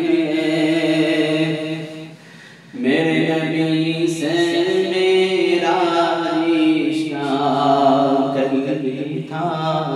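A man singing an Urdu naat, a devotional poem in praise of the Prophet, unaccompanied, in long held and wavering notes. There is a short break for breath a little over two seconds in.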